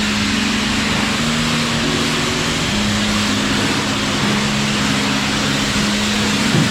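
Pressure washer running: the steady hiss of the water jet over the hum of its engine.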